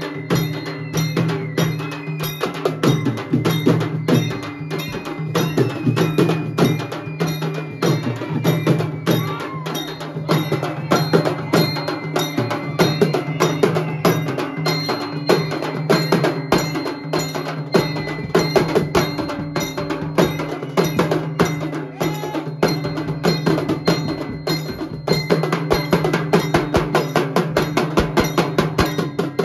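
A Maharashtrian banjo-party band playing live. Fast, even drumming on a set of drums and cymbals with metallic clanks, over a steady low held tone.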